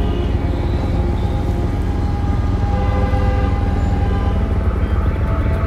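Dark soundtrack music with held tones over a deep, steady rumble.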